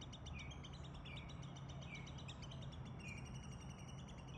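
Small birds chirping faintly: many short, high chirps repeated in quick runs, with a few brief sweeping notes, over a steady low hum.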